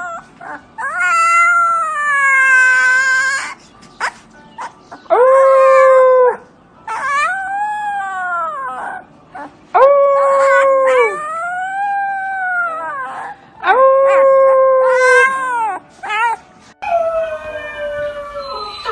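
A dog howling: a series of about seven long calls, each rising and then falling in pitch, with short pauses between them.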